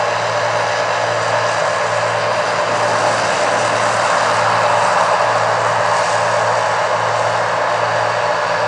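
Massey Ferguson 8570 combine running steadily, a loud, even machine drone over a constant low hum.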